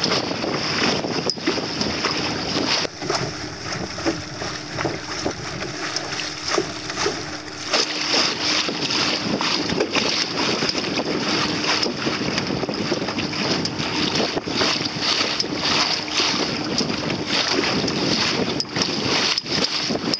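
Wind buffeting the microphone and choppy water splashing around a small sailing dinghy under way, in constant gusty rushes. A faint steady hum runs underneath from a few seconds in.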